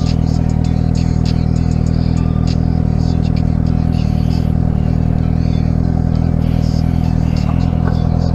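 Motorcycle engine idling at a standstill: a steady low note with quick, even pulses, holding its pitch throughout.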